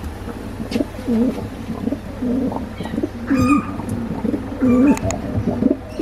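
King pigeons cooing: a series of about five low, warbling coos roughly a second apart, with a brief higher chirp about midway.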